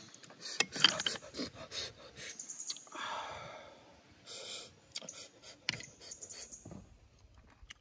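Cooked snail shells clicking and clattering against each other in quick runs, with a drawn-out sucking sound about three seconds in as the snails are eaten.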